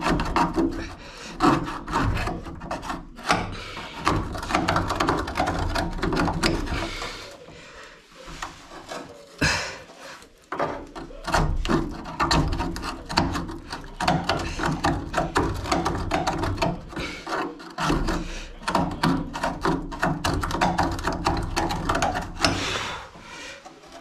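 Hands working at a washing machine's drain pump and rubber drain hose: irregular scraping, rubbing and clattering of plastic and metal parts while the blockage is cleared.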